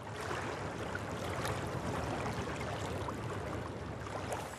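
Steady river ambience: the rushing of moving water on the river, with no distinct events.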